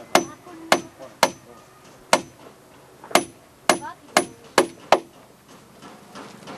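Hammer blows on a timber roof beam, fixing a cross in place: nine sharp strikes at an uneven pace of about two a second, each with a short metallic ring, stopping about five seconds in.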